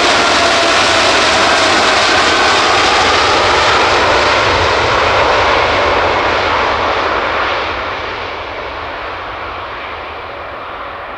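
Boeing 787-8's Rolls-Royce Trent 1000 turbofans at takeoff power on the takeoff roll, a loud steady jet noise with a tone that slides down in pitch as the aircraft passes. The noise fades from about six seconds in as the aircraft moves away down the runway.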